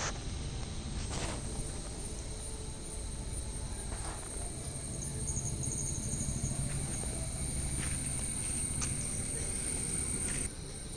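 Insects in the garden droning steadily at a high pitch, over a low rumble with a few soft clicks; the whole drops a little in level near the end.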